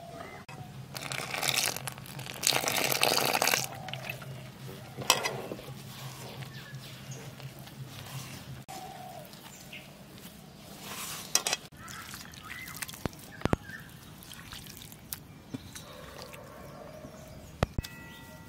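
Water poured into a steel bowl of dry gram flour in two splashing pours, followed by hands squelching the wet batter, with a few sharp clicks of steel bowls near the end. Hens cluck faintly in the background.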